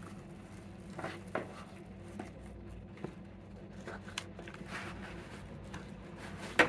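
Cardboard packaging being handled: scattered scrapes, rustles and light taps as the boxed grinder and its inner cardboard are tipped and slid out, with one sharper knock near the end.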